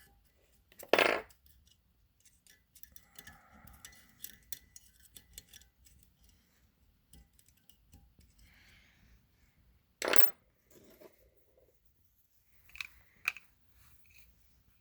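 Small steel pick tool clicking and scraping against a valve spring retainer and its keepers in a motorcycle cylinder head. Two short, louder metallic scrapes come about a second in and about ten seconds in, with scattered light clicks between and two more near the end.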